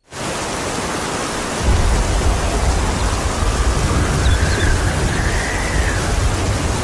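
Loud steady rushing of water washing over a plastic toy, with a deep rumble joining about a second and a half in. It starts and stops abruptly.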